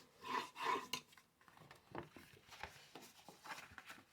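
Quiet handling of folded cardstock: soft rustling with a few light taps and clicks as the paper is moved and pressed.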